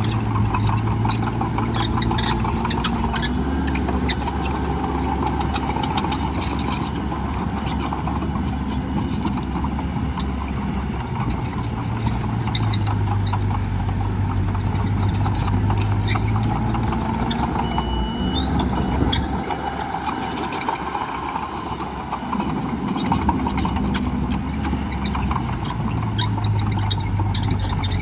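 Heavy diesel earthmoving machinery running, bulldozer and dump truck engines, with the low engine note shifting up and down several times as the machines work, and scattered clicks and knocks over it.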